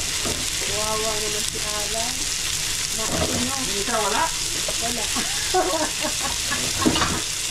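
Two whole fish frying in oil on an electric griddle, a steady sizzle throughout.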